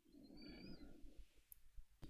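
A man's faint, slow breath close to the microphone, lasting about a second, with a thin whistling edge to it. About one and a half seconds in comes a single soft click, like a lip or mouth click.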